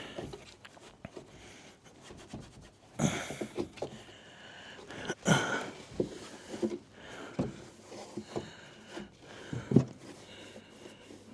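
A man breathing hard and sniffing, with scattered knocks and rustles from handling as he works his way into position.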